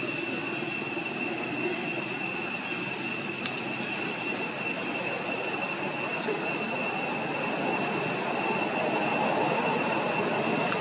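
Steady outdoor background drone: several constant high-pitched tones held over a broad hiss, which swells a little louder near the end.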